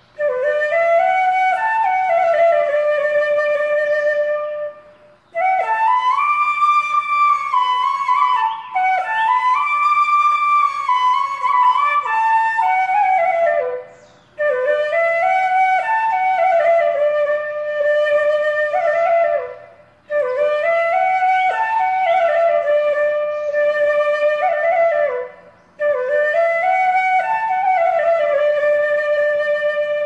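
Music: a solo flute playing a slow melody in five phrases, each a few seconds long, with short pauses between them.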